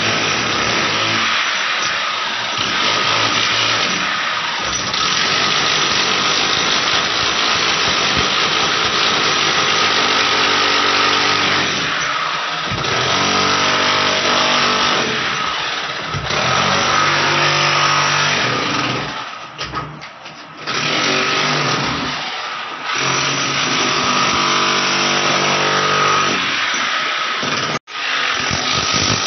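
Electric chipping hammer running in long bursts with a few short pauses, its chisel bit breaking up plaster and brick at the base of a wall to cut a channel for plumbing pipes.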